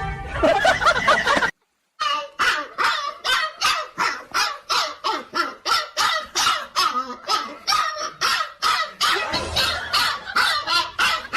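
An animal calling over and over in quick, evenly spaced cries, about three a second, starting about two seconds in.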